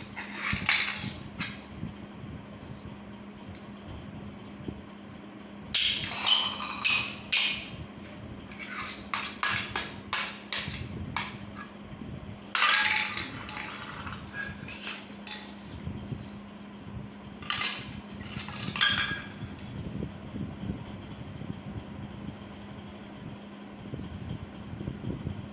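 A small child banging and clattering household objects, with bursts of rapid knocks and metallic clatter like pots and utensils being struck, separated by pauses. A steady low hum runs underneath.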